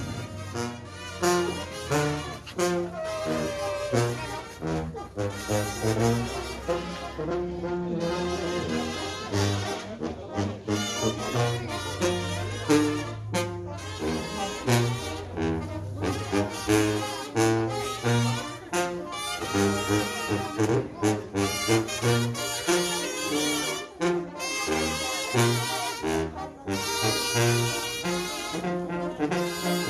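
Mexican banda (brass band) playing a tune: trumpets and trombones carry the melody over a low bass line with a steady beat.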